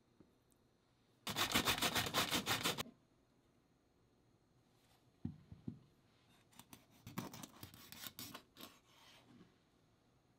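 Daikon radish being grated in a quick run of rasping strokes lasting about a second and a half. Two soft knocks follow, then scattered scraping and clicking as the grated daikon and its container are handled.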